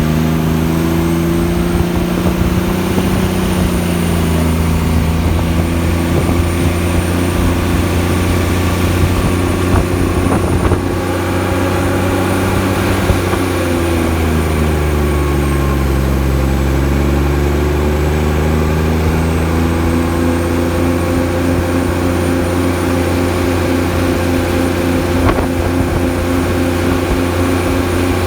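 Kenworth T800 truck's diesel engine braking on a long downhill with the engine brake (Jake brake) on, a loud steady deep exhaust drone. About halfway through, the engine's pitch sags and then climbs back.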